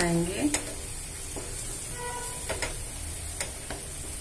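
Ground onion paste frying in ghee in a nonstick pan with a steady sizzle, while a wooden spatula stirs and scrapes it, knocking against the pan a few times. A short pitched tone sounds about two seconds in.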